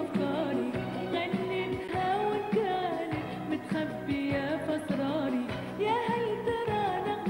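A woman singing an Arabic pop song into a handheld microphone over backing music with a steady beat.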